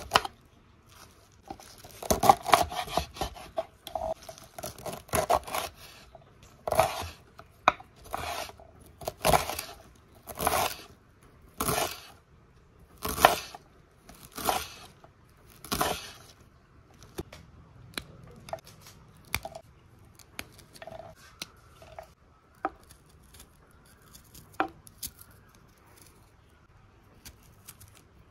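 Kitchen knife chopping through a bunch of fresh leafy green stems on a wooden board, each stroke a crisp, crunchy cut, coming about once a second. About halfway through the chopping stops, leaving only a few faint small cuts and clicks.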